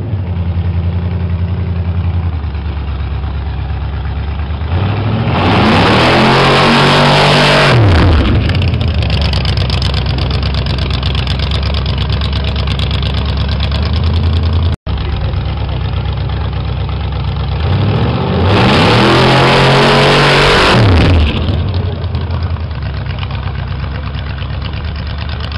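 1500 hp Chevrolet Corvette-based dragster's V8 idling with a choppy beat, revved hard twice, each time climbing in pitch for a couple of seconds and then dropping back to idle. The audio cuts out for an instant about halfway through.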